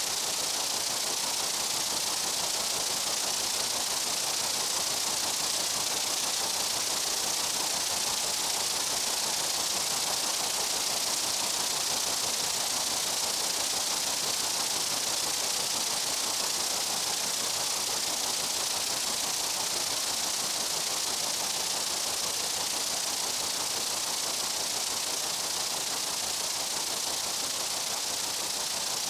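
Steady high-pitched insect buzzing from a summer meadow, a constant hiss-like drone without pauses.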